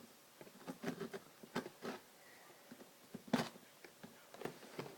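Hands working at a headset's retail packaging to get it open: scattered crackles and clicks of the packaging being pulled, with a sharper snap about three seconds in.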